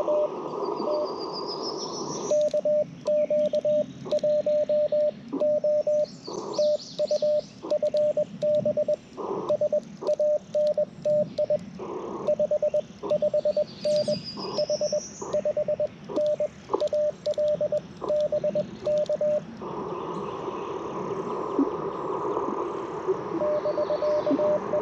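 Morse code from an Icom IC-705 transceiver: a steady mid-pitched tone keyed in dots and dashes for about 17 seconds, then the receiver's band hiss with a fainter incoming Morse signal starting near the end. Birds give short rising chirps a few times in the background.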